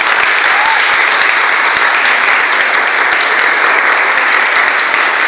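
An audience applauding: many people clapping at once, loud and steady.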